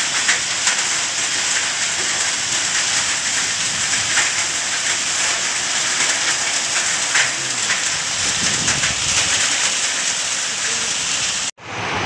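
Heavy rain mixed with small hail beating down on paving: a dense, steady hiss with faint scattered ticks. It cuts off suddenly near the end.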